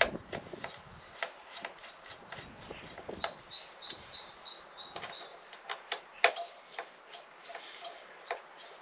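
Light clicks and taps of hands handling the plastic starter handle and housing of a Stihl MS 462 C chainsaw. A bird chirps a quick run of high notes about three and a half seconds in.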